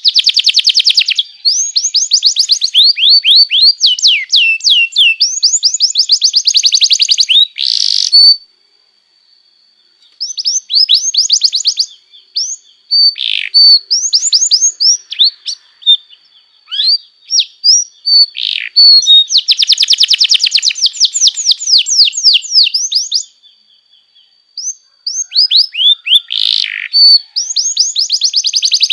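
Domestic canary singing: fast trills of repeated sweeping notes, with long held whistle notes and two brief pauses.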